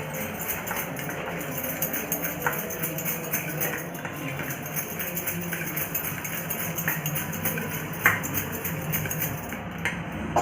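A spoon scraping and clinking against a bowl as a wet mashed-banana mixture is stirred, with many small clicks and a sharper clink about eight seconds in.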